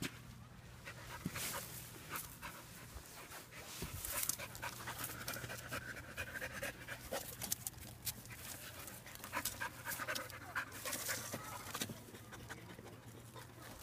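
A puppy panting and sniffing, with short scuffs and rustles as it pushes its head into gaps between rocks and dry grass.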